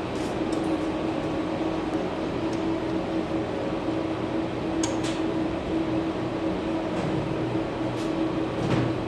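A steady machine hum with one constant mid-low tone, and a few faint clicks as wires are handled at a cable terminal board.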